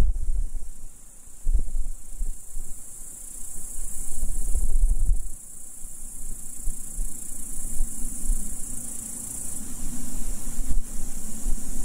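Meadow crickets chirring in a steady, high-pitched chorus, with uneven low rumbles in the first half and a low hum joining in from about halfway.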